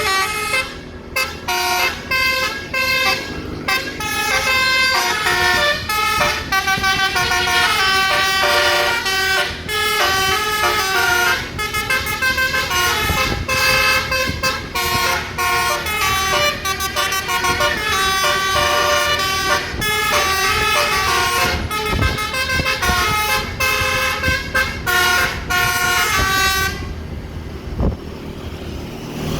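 A bus's 'basuri' telolet musical air horn playing a fast, many-note tune, which cuts off near the end.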